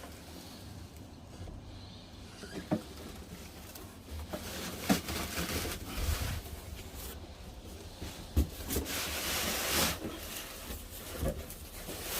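Cardboard packaging being cut open and handled by hand: scattered knocks and clicks with stretches of scraping and rustling.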